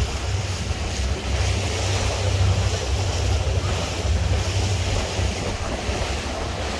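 Wind buffeting the microphone and water rushing past a moving wooden abra boat, over the boat's steady low engine drone.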